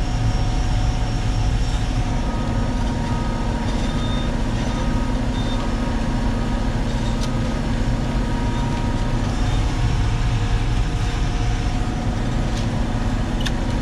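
Concrete mixer truck running steadily, its engine driving the rotating drum while it discharges concrete; a constant drone with a few held tones that does not change.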